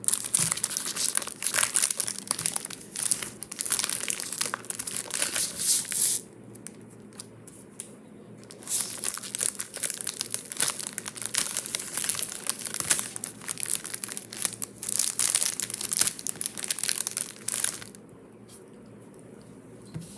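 Plastic wrapping of a pack of Peeps marshmallows crinkling and tearing as it is handled and opened by hand, in two long spells with a pause of a couple of seconds about six seconds in; the crinkling stops a couple of seconds before the end.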